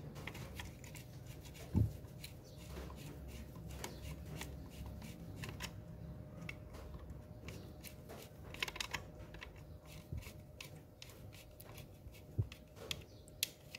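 Hand screwdriver turning a screw into an electric cutter's housing: faint, irregular small clicks and scraping, with one sharper click about two seconds in.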